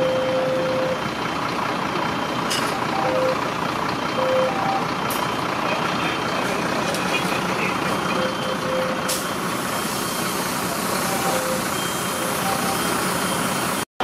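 Fire engine's diesel running steadily, with short high beeps breaking in now and then at uneven spacing.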